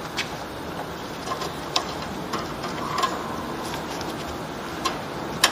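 Irregular small clicks and taps as a toothed drive belt is worked by gloved hands onto the pulleys and metal housing of a TOTAL TTKP15001 wood thickness planer, over a steady hiss. The loudest knock comes near the end.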